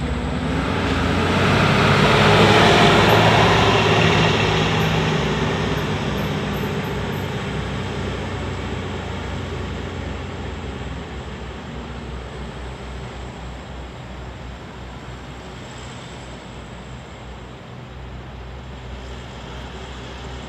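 A truck passes close by on the road, its engine and tyre noise swelling to a peak about two to three seconds in, then slowly fading into the distance.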